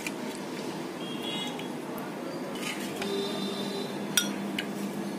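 A steel ladle scooping thick rabdi from a steel pan and pouring it into a cut-glass bowl, clinking against the dishes a few times, the sharpest clink about four seconds in, over steady background noise.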